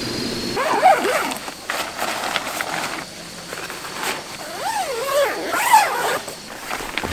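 A small dog whining in short calls that rise and fall in pitch, once about a second in and in a longer run near the end. Between the calls there is a rustling of tent fabric being handled.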